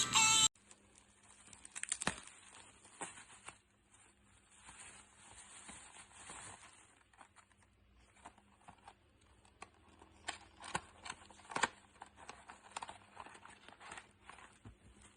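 A music jingle cuts off about half a second in, followed by faint crinkling and scattered small clicks of something being handled at close range, with a few louder clicks near 2 s and around 10 to 12 s, over a faint steady hum.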